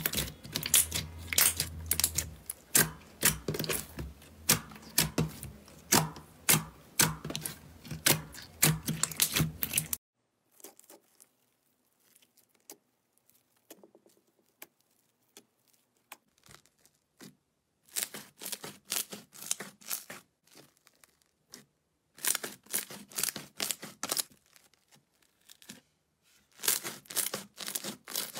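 Clear purple slime pressed and poked by hand, giving a fast run of sharp pops and clicks. About ten seconds in it changes to grainy yellow crunchy slime: only faint scattered clicks while it is stretched, then three bursts of crackling as it is squeezed and kneaded.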